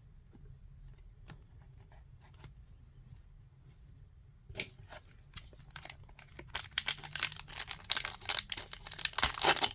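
Faint scattered handling clicks, then from about halfway a foil trading-card pack wrapper being crinkled and torn open: a rapid crackling that grows louder toward the end.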